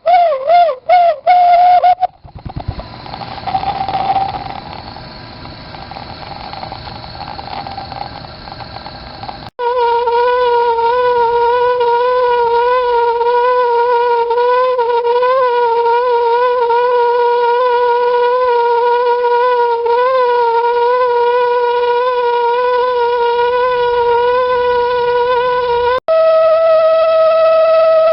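Toyotomi laser-burner kerosene heater resonating with a loud, steam-whistle-like tone, a sign that the burner is short of combustion air. The tone warbles at first, gives way to a few seconds of quieter burner hiss, then returns as a long steady whistle, which cuts off briefly near the end and comes back at a higher pitch.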